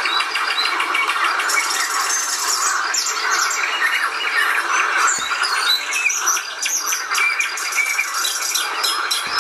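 A dense chorus of many birds chirping and calling at once: a steady crowd of short squawks, whistled glides and ticking notes over a continuous hiss.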